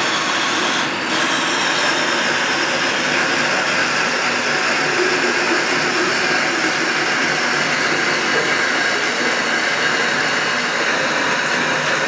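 Hot tap water running from a bathtub faucet into a plastic bucket, a steady splashing stream as the bucket fills.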